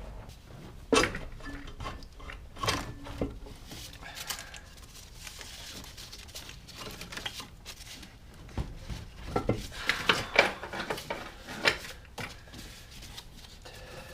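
Irregular metallic clinks and knocks of hand tools and engine parts being handled during cylinder-head removal, with a cluster of sharper clanks about ten to twelve seconds in.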